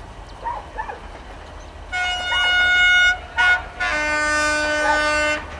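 Air horn of an approaching LDH diesel-hydraulic locomotive sounding three blasts: one of about a second, a short toot, then a longer blast with a lower note.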